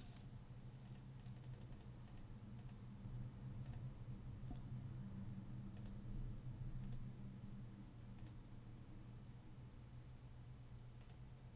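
Faint clicks of a computer mouse, scattered and irregular with a quick run of several early on, over a steady low electrical hum.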